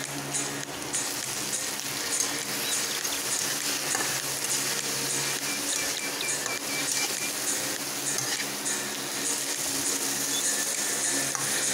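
Chopped onions sizzling as they sauté in an aluminium wok, with a fork scraping and tapping against the pan, and chopped tomatoes tipped into the pan partway through.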